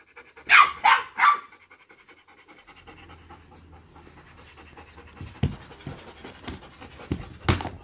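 Belgian Malinois panting hard, several loud breaths in the first second or so, then quicker, softer panting. A few knocks near the end, the loudest just before the close.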